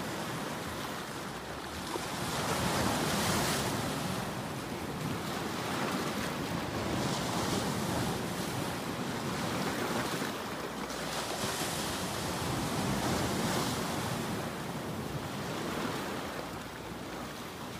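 Ocean surf breaking on a rocky shore: a steady wash of wave noise that swells and eases with each set of breakers, loudest about three seconds in and again around eleven to fourteen seconds in.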